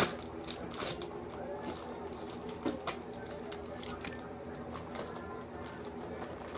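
Light, irregular clicks and rustles of shredded lettuce being handled and dropped into a bowl, with a faint voice in the background.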